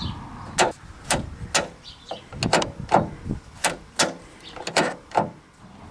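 Rear door handle and latch mechanism of a 1992 Chevy Astro van, freshly sprayed with silicone lubricant, worked over and over: about ten sharp metallic clicks and clacks, a few tenths of a second to a second apart.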